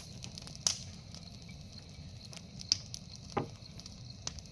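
Fire crackling, with a few sharp pops over a steady low rumble.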